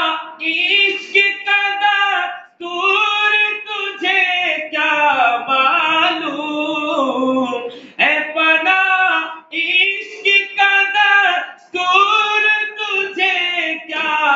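A man singing a naat (Urdu devotional poem) solo and unaccompanied, in long, wavering, drawn-out phrases broken by short breaths.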